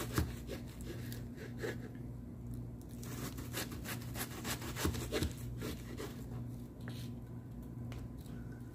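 Small kitchen knife dicing an onion on a wooden cutting board: runs of quick taps as the blade slices through and strikes the board, coming in bursts, over a low steady hum.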